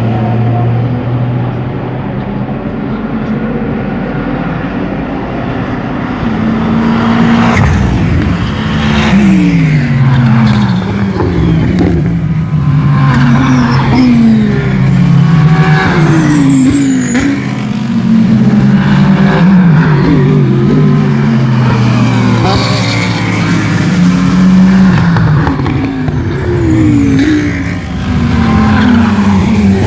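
Several GT3 race cars going by one after another. Their engine notes drop in pitch again and again, in steps, from about seven seconds in, after a quieter, steadier engine sound at the start.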